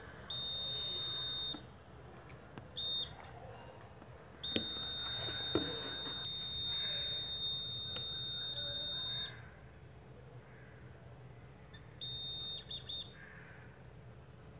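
Piezo buzzer of a breadboard laser tripwire alarm sounding one steady high-pitched tone in on-off bursts: a burst of about a second, a brief blip, a long stretch of about five seconds, then a few short blips. It sounds whenever the laser beam on the light-dependent resistor is blocked and stops when the beam falls on it again.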